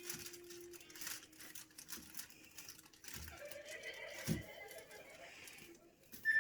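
A toddler rummaging among food in an open fridge: small clicks, rustles and knocks of containers being handled, with one dull knock about four seconds in.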